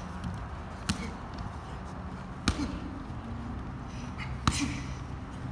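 Three sharp smacks of gloved strikes landing on Muay Thai pads, about two seconds apart, each with a short echo in the hall.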